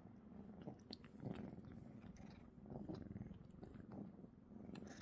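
A cat purring: a faint, low, pulsing rumble with a few soft clicks over it.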